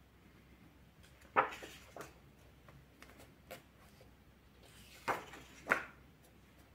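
Pages of a paper colouring book being turned and handled: a handful of short rustles and taps, the loudest about a second and a half in and twice near the end.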